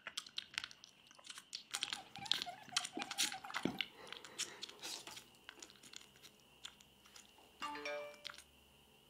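Irregular crunching and chewing, a run of short crisp clicks, with a brief pitched sound about eight seconds in.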